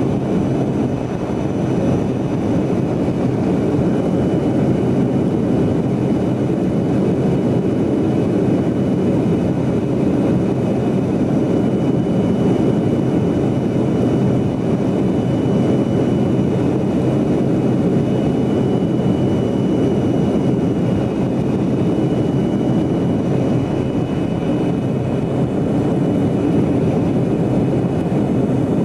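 Cabin noise of a Yakovlev Yak-40 jetliner in cruise: a loud, steady rush of airflow and its three rear-mounted Ivchenko AI-25 turbofans, with a faint thin whine held steady above it.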